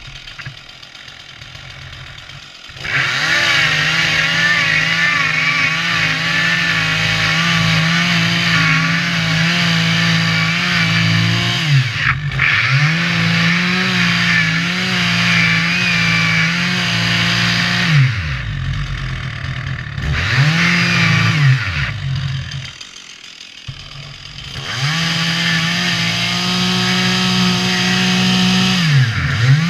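Two-stroke chainsaw idling, then opened up to full throttle about three seconds in to cut into a standing dead tree (a snag). The engine pitch sags and recovers several times as the chain works in the cut. Past the middle it drops back to idle for a couple of seconds, then runs at full throttle again near the end.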